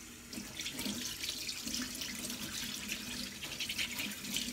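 Kitchen tap running steadily into a stainless steel sink, the stream splashing over a gutted Pacific saury as its belly cavity is rinsed clean.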